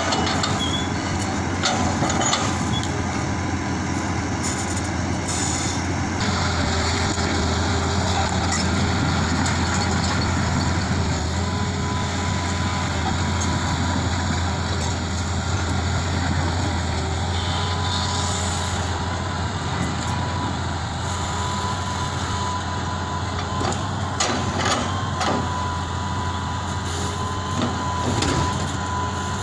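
Hitachi Zaxis 200 hydraulic excavator's diesel engine running steadily as it works its log grapple, with a thin steady whine joining about a third of the way in. Occasional knocks of rubberwood logs being set onto the truck bed come near the end.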